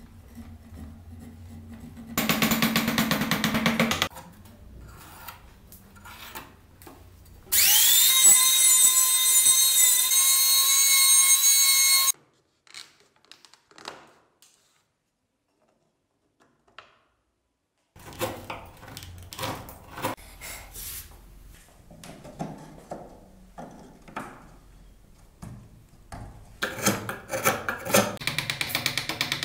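Woodcarving power tools and hand tools on a wooden car body. Two seconds of loud grinding noise, then a motor whine that rises as it spins up and runs at a steady pitch for about four seconds, stopping abruptly. After a silent gap come light scraping and clicking of hand tools on wood, and near the end a power tool with a flat blade cutting the wood with a fast rattle.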